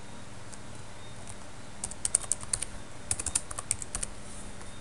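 Computer keyboard typing: two short runs of quick keystrokes, starting about two seconds in.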